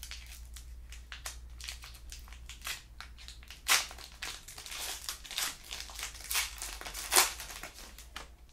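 Wrapper of a basketball trading-card pack being torn open and crinkled by hand: an irregular run of crackles, two of them louder, about halfway through and near the end, over a faint steady low hum.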